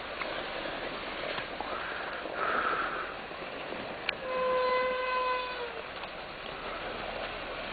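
A truck horn sounds once about four seconds in: one steady tone held for about a second and a half, sagging in pitch as it ends, over steady background noise.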